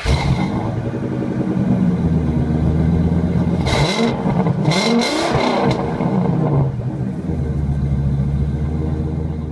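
The 2002 motorhome's Ford Triton V10 engine pulling under load. Its pitch rises and falls twice around the middle, then it settles back to a steady drone.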